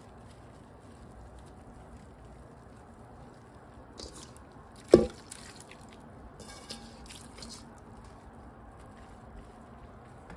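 Wet, salt-rubbed red shiso leaves squishing as they are pressed by hand onto pickled ume plums and scraped out of a metal bowl, with one sharp knock about five seconds in and a few small crackles soon after.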